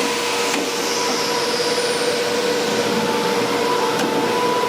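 Steady whir and hiss of workshop machinery running, with a constant hum tone. A faint click comes about half a second in and another near the end.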